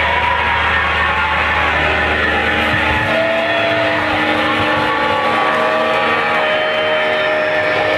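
Live band playing a loud, distorted passage: a wall of amplified noise with long feedback-like tones sliding slowly in pitch. A low electric-bass drone under it stops about three seconds in.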